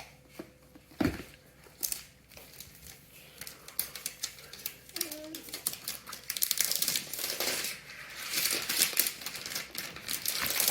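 Packaging of a new laptop being crinkled and pulled open by hand, with scattered rustles at first and a dense run of crinkling in the second half.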